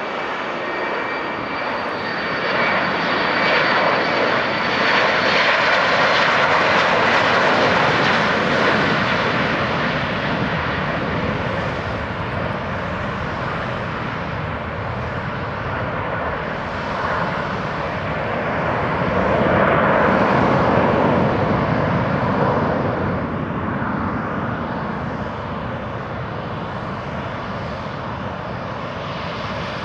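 Douglas DC-9-15's twin Pratt & Whitney JT8D turbofan engines at takeoff power: steady jet noise with a high whine over it at first, growing loud a few seconds in as the jet rolls and lifts off. The noise swells again about twenty seconds in, then slowly fades as the jet climbs away.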